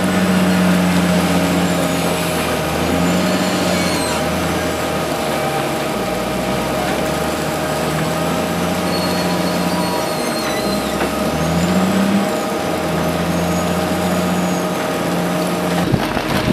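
Diesel engine of a large Caterpillar wheel loader working under load, its note rising and falling as it lifts the bucket, revving up about three quarters of the way through, with a steady high whine running over it.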